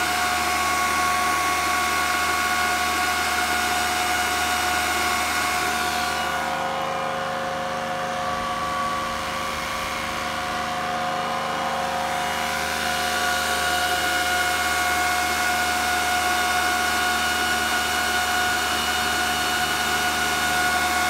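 Antminer S9 Bitcoin miner's 120 mm cooling fans running at full speed: a steady loud rush of air with several steady whining tones over it. The airy hiss eases off for a few seconds in the middle, then comes back.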